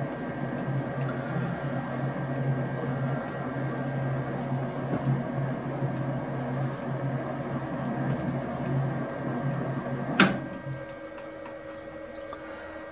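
Metal lathe running under power, its spindle turning a worm shaft during a very light screwcutting pass on the worm's flank: a steady mechanical hum with a thin high whine. About ten seconds in comes a sharp clunk, the whine stops and the running sound drops much quieter.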